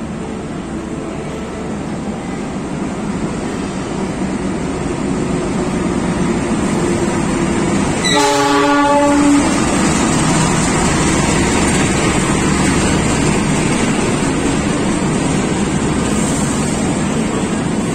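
KAI diesel locomotive hauling a passenger train into a station platform, its rumble growing louder as it approaches. About eight seconds in it sounds one horn blast lasting a little over a second.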